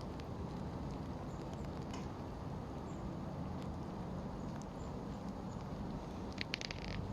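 Rain falling on puddles: a steady low rush with scattered drip ticks, and a short cluster of sharper drips near the end.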